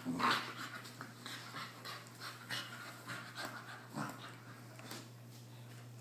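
Two pit bull–type dogs play-wrestling and panting, with irregular short bursts of breath. The loudest burst comes right at the start.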